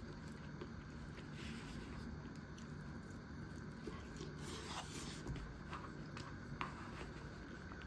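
Quiet eating sounds from a fried chicken bento: small scattered clicks and two brief crunchy rustles, about a second and a half in and again around four and a half seconds in, over a steady low hum.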